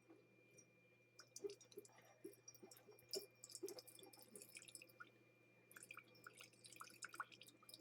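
Faint water dripping and trickling at a drip coffee maker, with light scattered clicks that grow busier in the second half.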